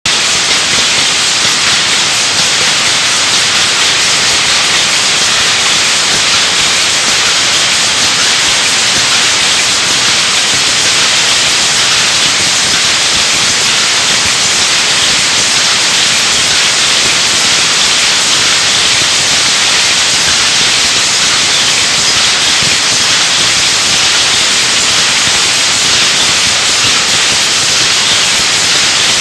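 A shed full of power looms with electronic jacquard heads running together, a loud steady mechanical din in which the beats of the individual looms blur into one dense noise.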